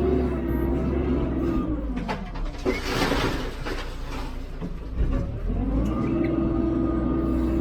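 Hidromek 102B backhoe loader's diesel engine running. Its pitch sags about two seconds in as it takes load, with a loud rushing noise over it for about two seconds. The engine climbs back to its steady speed near the end.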